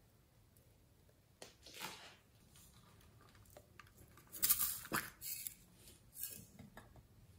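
Soft handling sounds of slime-making: light rustling, tapping and clicking of small plastic containers and tools over a glass bowl, loudest about halfway through. Near the end, glitter is shaken out of a small plastic bottle onto the slime.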